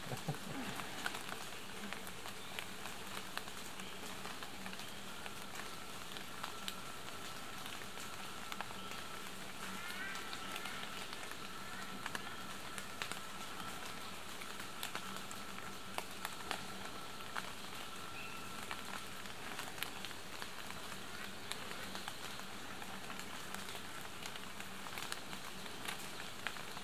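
Forest ambience: an even hiss scattered with faint ticks, under a faint low hum. A thin, steady high tone runs from about five seconds in to about nineteen seconds in, with a few short chirps around ten seconds.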